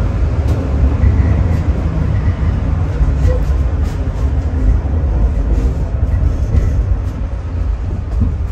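Tram running along its track: a steady, heavy low rumble from the wheels and running gear on the rails, with a few faint ticks.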